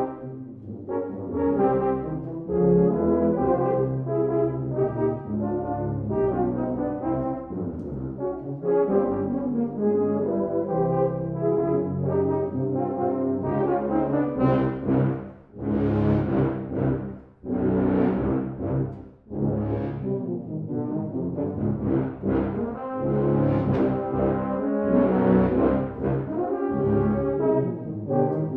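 A tuba and euphonium quartet (two euphoniums, two tubas) playing a rhythmic ensemble passage. About halfway through come several loud accented chords, each cut off by a short break.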